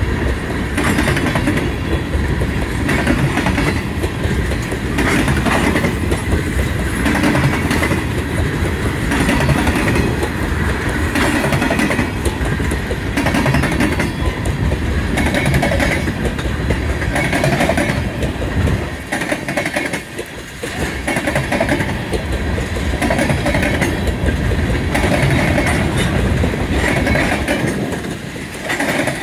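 Freight train of tank cars rolling past close by, the steel wheels clicking over the rail joints in a repeating rhythm over a steady rumble. It eases briefly about two-thirds through, then carries on.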